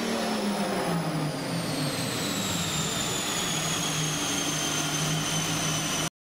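Turbocharged 6.0-litre LQ4 V8 running low on a chassis dyno just after a pull, with a high whine that falls steadily in pitch as it winds down. The sound cuts off suddenly near the end.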